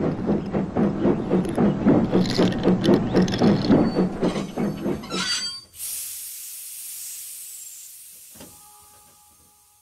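Steam locomotive sound effect: steady rhythmic chuffing, about four puffs a second. About five and a half seconds in it gives way to a long hiss of steam that slowly fades away.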